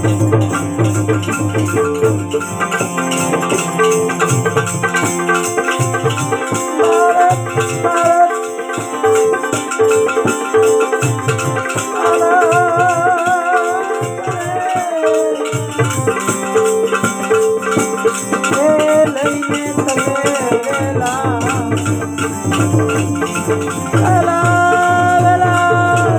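Instrumental interlude of a Gujarati devotional bhajan: a melody instrument plays wavering lines over steady held notes, with a hand-drum beat and a shaken rattle keeping time. The drum beat thins out for several seconds in the middle and comes back.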